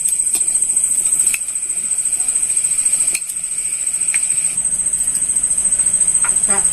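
Luchi frying in hot oil in a kadai over a wood fire, a faint steady sizzle through the first half, with a few light clicks. A steady high-pitched insect trill runs throughout and is the loudest sound.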